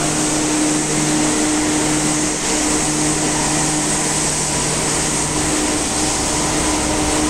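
Kobe Municipal Subway 5000-series train standing at an underground platform, its onboard equipment running with a steady whirring hum and a low, even tone.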